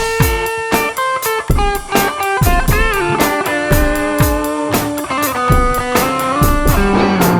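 Electric guitar with P90 pickups played through a BOSS GT-1000 amp modeller on a crunch patch: sustained lead notes with string bends over a drum beat.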